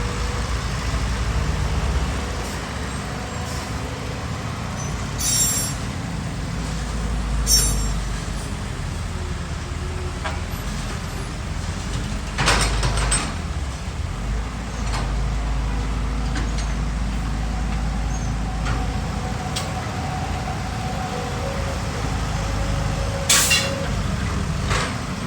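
Excavator engine running with a steady low rumble, broken by occasional sharp knocks and clanks, the loudest about halfway through and again near the end.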